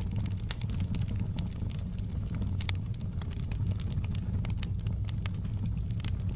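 Wood fire burning in a fireplace, crackling with irregular sharp snaps and pops over a steady low rumble.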